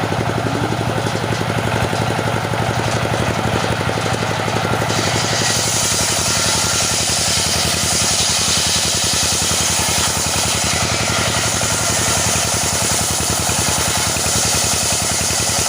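Engine-driven saw milling teak, its engine running with a fast, steady beat; a higher hiss comes in about five seconds in and holds.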